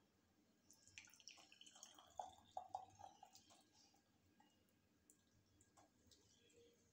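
Milk tea poured from a pan through a mesh tea strainer into a cup: faint trickling and splashing of liquid starting about a second in and lasting about two and a half seconds, with a slight rising pitch.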